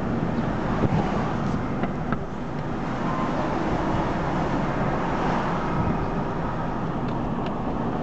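Steady road and engine noise of a car driving along a town street.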